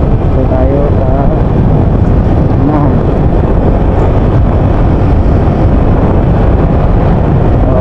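Wind noise and a motorcycle engine running while riding along a road, picked up by an action camera's built-in microphone as a loud, steady rumble.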